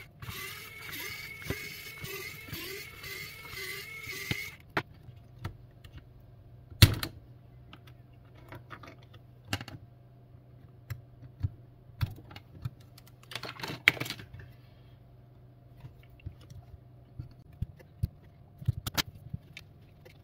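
Small plastic parts of a Redmi 10C smartphone being pried apart: a repeating scratchy scraping for the first four or five seconds, then scattered clicks and taps of the tool and plastic frame, the loudest about seven seconds in, over a faint low hum.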